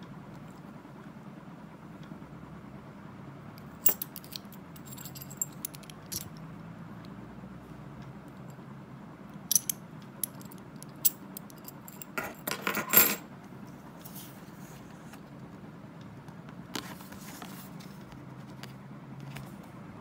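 Metal clinks and jingles from a steel disc-detainer padlock and a metal tool or key ring being handled, with a quick cluster of clinks a little past halfway, the loudest moment. A brief rustle follows near the end, over a steady low background hum.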